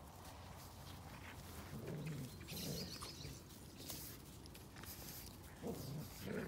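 Two dogs play-fighting, a puppy and an older dog, with a few short low growls and the scuffle of paws on frosty grass.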